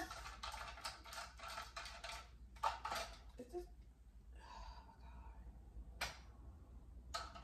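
Light clicking and rattling of a ring light and its stand being handled and adjusted: a quick run of taps for the first two seconds or so, then a few single clicks.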